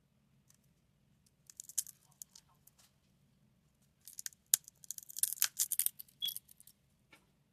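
Hand work on an iPhone's back during back-glass repair: crisp crackling, scraping and clicking, a short burst about a second and a half in and a longer, denser run from about four seconds in.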